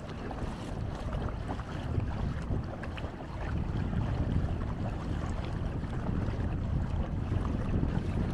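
Wind rumbling on the microphone with water noise as the canoe moves along. The rumble grows louder about three and a half seconds in.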